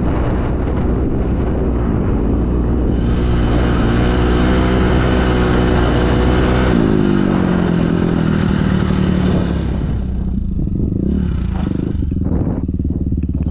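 Dirt bike engine running at speed; about seven seconds in its pitch falls away as the throttle closes, and from about ten seconds it runs low and slow with a few knocks.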